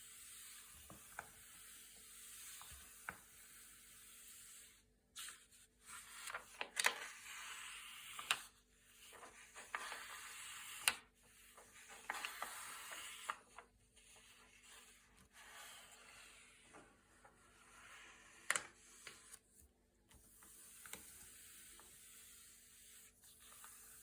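Thick, glossy paper pages being turned and handled: soft rustling and sliding with sharp crackles and snaps as each page flips, busiest in the first half and again briefly near the end.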